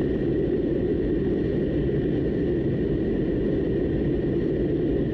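Steady road noise inside a moving car's cabin: low tyre and engine rumble, with a faint steady high tone above it.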